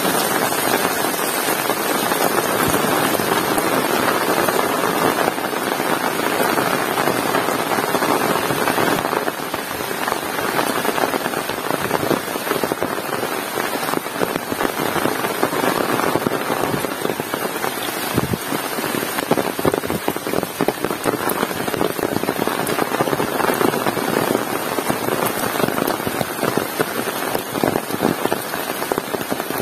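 Heavy rain pouring down in a steady, dense hiss. About nine seconds in it drops slightly in level, and the separate splats of individual drops become more distinct.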